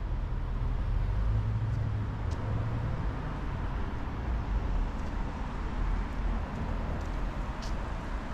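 Street traffic ambience: a steady low rumble of cars on the road, swelling a little for a few seconds as a car passes, with a few faint light clicks.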